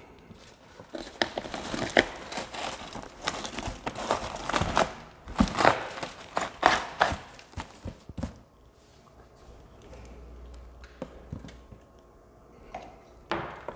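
Large cardboard box lowered over a plastic tub, its sides scraping and rubbing with rustles and sharp knocks for several seconds. It goes quieter, then a couple of knocks near the end as a metal flood lamp is set on top of the box.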